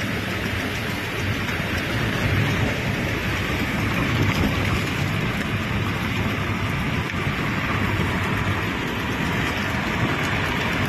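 Steady rush of wind and tyre noise from a car travelling at highway speed.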